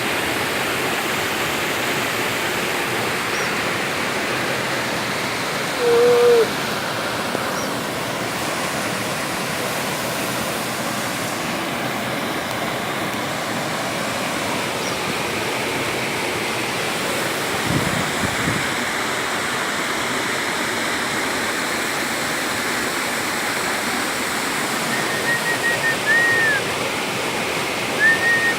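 Steady rush of a waterfall, water pouring and splashing without a break. A short pitched sound cuts in about six seconds in, and a few faint high tones come near the end.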